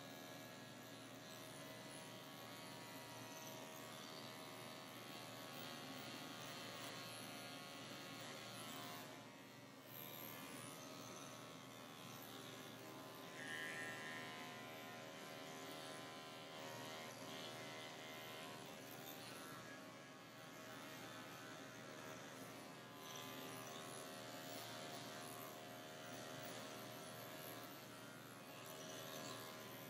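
Cordless dog grooming clipper running with a faint, steady buzz as it shaves down a pelt-matted coat.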